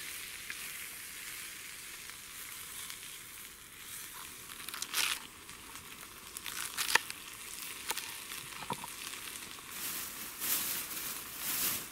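Potatoes and Leberkäse frying in a small pan on a wood-burning Bushbox stove, with a steady sizzle. A few sharp knocks of a knife on a wooden cutting board cut through it, the sharpest about seven seconds in.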